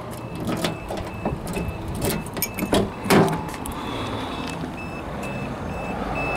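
Small clicks of a key working a vehicle door lock, then a clunk as the door opens, followed by a short high warning beep that repeats about twice a second.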